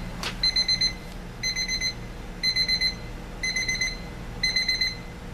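Westclox Big Ben 90010-series quartz alarm clock's beep alarm sounding. It gives short bursts of rapid high-pitched beeps, one burst about every second.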